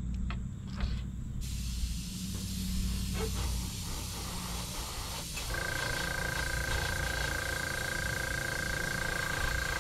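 Iwata airbrush spraying paint: a steady hiss of air starts about a second and a half in, and a steady high whine joins it about halfway through.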